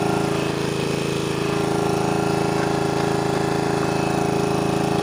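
Small petrol engine of an irrigation water pump running steadily at a constant speed, heard close up.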